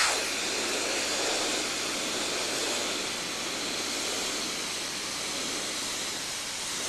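Compressed air hissing steadily from a hand-held air-hose nozzle, blowing a jet that holds a Styrofoam ball aloft.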